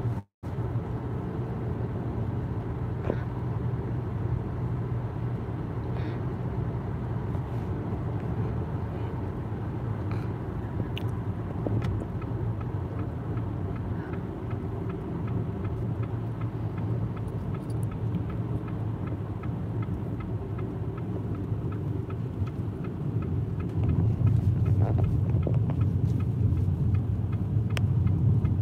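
Car in motion heard from inside the cabin: a steady low rumble of engine and tyre road noise, growing louder near the end.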